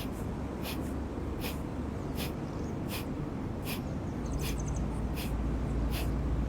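Kapalabhati breathing: short, forceful exhalations snorted out through the nose at a steady pace of about one every three quarters of a second, each with a quick passive inhale between. A steady low rumble runs beneath and grows louder after about four seconds.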